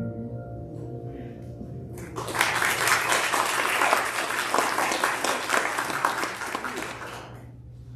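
The last held notes of a song die away, then a congregation applauds for about five seconds before the clapping trails off.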